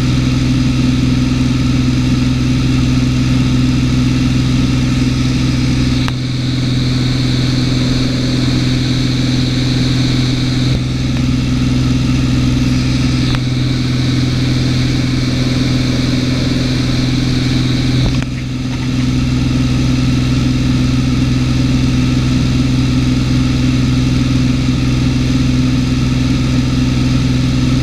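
Cessna 210's flat-six piston engine and propeller droning steadily, heard from inside the cabin in flight. The sound dips briefly about six and eighteen seconds in.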